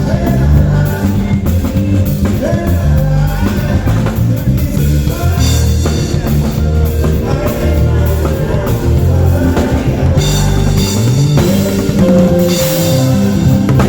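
Live band playing a song: drum kit, a bass line and guitar, with a voice singing at times.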